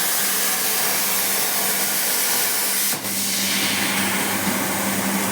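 CNC plasma cutting torch arc running with a steady hiss and a low hum under it; the sound dips briefly about three seconds in, then carries on with the hum more prominent.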